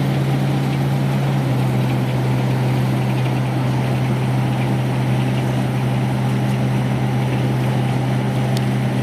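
Engine of a homemade rice harvester, a Yanmar 4T100, running steadily at an even pitch.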